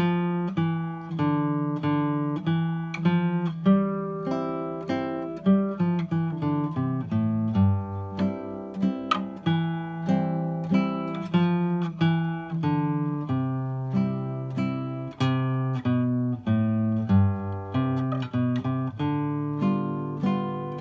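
Solo classical guitar, fingerpicked: a melody line of plucked notes over a moving bass, each note ringing and fading.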